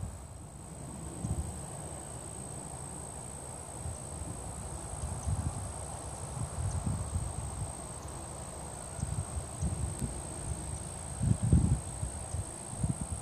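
Steady, high-pitched insect trill, unbroken throughout, with irregular low rumbles on the microphone that are loudest about eleven seconds in.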